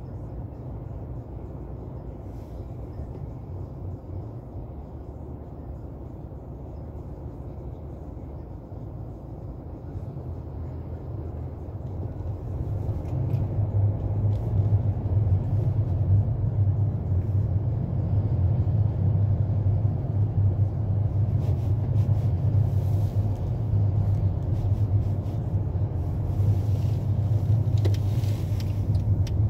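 Car engine and road noise heard from inside the cabin: a low, steady rumble while the car waits in traffic, growing louder from about halfway through as it pulls away and gathers speed.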